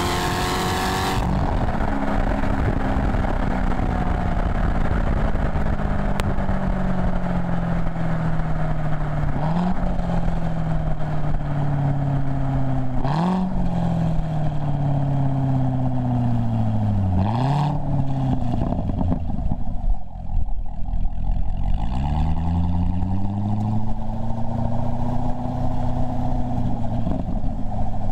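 Chevrolet Corvette V8 through its stock NPP exhaust. It revs up and shifts about a second in, then slows with falling revs and three quick throttle blips on the way down. After a short lull about two-thirds through, it pulls away and settles into a steady low drone.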